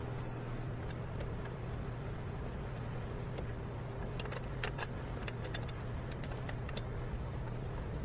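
Light metallic clicks and clinks of tools and small parts being handled, a scattered run of them starting about three seconds in, over a steady low hum.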